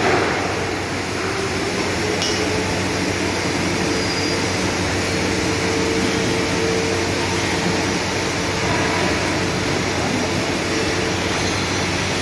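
Steady workshop hum in a large steel fabrication hall: industrial fans and machinery running with a low drone and a faint steady tone, and a faint clink about two seconds in.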